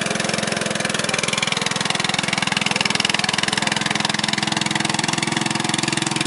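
Homemade tractor's engine running at a steady speed, its firing pulses rapid and even with no change in pitch.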